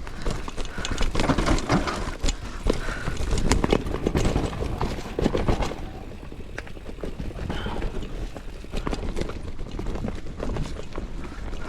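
Mountain bike rattling and clattering down a rough forest trail: many quick knocks from the wheels, chain and frame hitting bumps and roots, over a steady low rumble of tyres on dirt.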